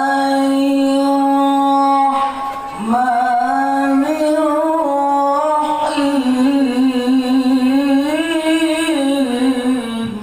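A male qori reciting the Quran in the melodic tilawah style. He holds one long steady note, breaks off about two seconds in, then sings a long ornamented phrase that wavers and rises and falls before ending.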